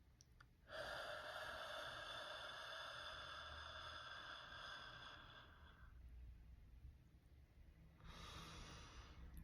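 A person breathing slowly and audibly, close to the microphone: one long breath of about five seconds, then a shorter breath about eight seconds in, as in a paced breathing exercise.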